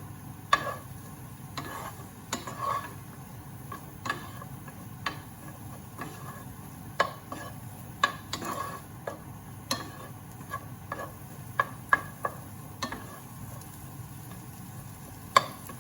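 A utensil scraping and knocking against a frying pan as the vegetables are stirred, with irregular clacks over a low sizzle of frying.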